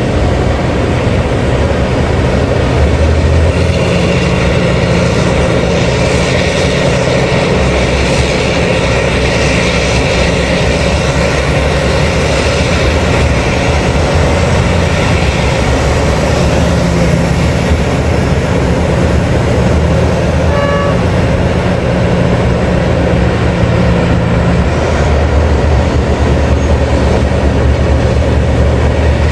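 Heavy diesel mining machinery, a mining excavator and haul truck working, running loud and steady; the engine note shifts several times. A brief high tone sounds about two-thirds of the way through.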